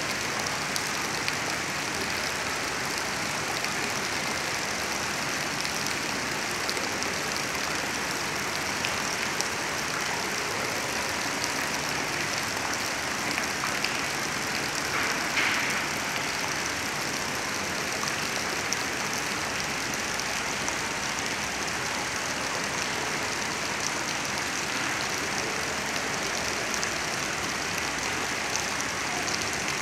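Steady splashing of water pouring from a pipe outlet into a pool.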